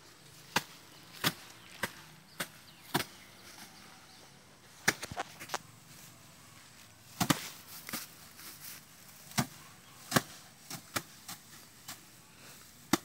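Rice sheaves being beaten by hand against a wooden slatted threshing rack, giving sharp knocks roughly one a second, with short pauses and a few quick doubles.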